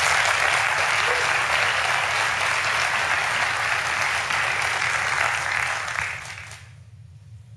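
Large auditorium audience applauding, which fades away about six seconds in.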